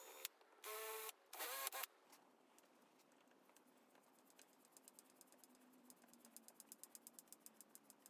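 Festool cordless drill running in two short bursts, driving a screw into the wooden chair arm. Later a run of quick, even ticks, about five a second, as a hand screwdriver is turned.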